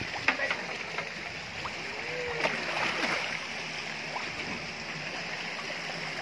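Water sloshing and splashing as cattle and a man wade through a pool, with a sharp splash about a third of a second in over a steady rush of water.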